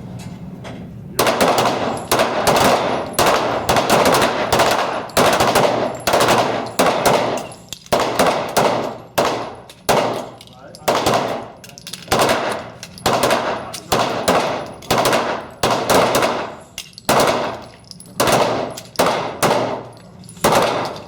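Several handguns firing together from a shooting line: rapid, overlapping shots that start about a second in and go on without a break, each trailed by a short echo.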